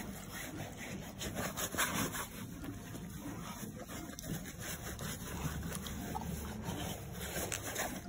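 Straw bedding in a horse stall rustling and being rubbed, in irregular bursts with small crackles.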